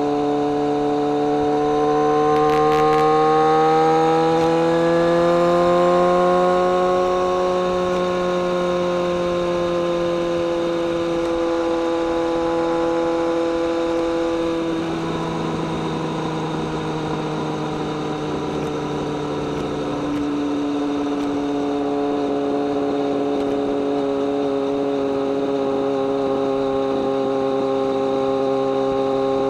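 BMW K1200R Sport's inline-four engine and exhaust under way. The engine note rises as the bike accelerates over the first several seconds, eases down a little before halfway, then holds a steady cruise.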